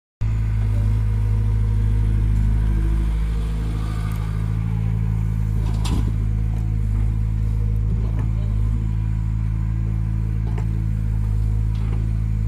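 Diesel engine of heavy earthmoving machinery running steadily at an even speed, with a few sharp clanks scattered through.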